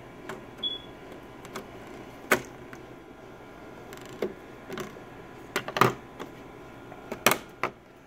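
DDR2 FB-DIMM memory modules being pressed into the slots of a Mac Pro memory riser card. Three sharp clicks stand out, a second or two apart, among lighter taps as the modules seat and the slot latches snap shut.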